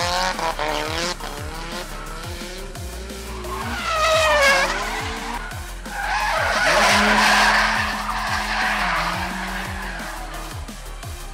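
Drift cars' engines revving and sliding past with squealing, skidding tyres: a sharp rising rev about four seconds in, then a held engine note under loud tyre noise for a few seconds. A music track with a steady kick-drum beat runs underneath.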